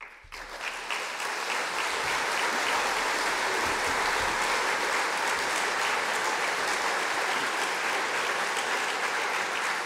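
A large audience applauding, the clapping building up within the first second and then going on steadily.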